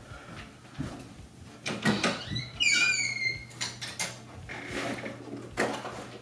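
A closet door being opened and things handled inside it: several knocks and bumps, and a short high squeak about three seconds in.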